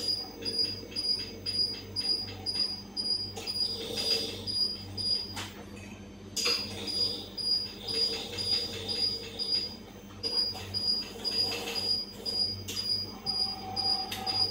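Electric drive motors and gearing of a laboratory scale boom crane running as the boom slews and luffs. A regular pulsing comes about three times a second over a steady hum, with swells of whirring as the boom moves.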